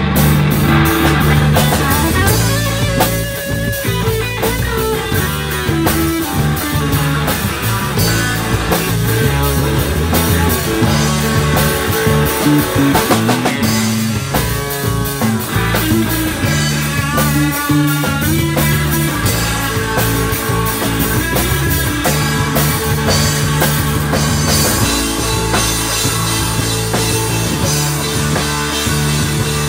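Live rock band playing an instrumental passage on electric guitars and drum kit, loud and dense, with the guitar line bending and wavering in pitch a few times.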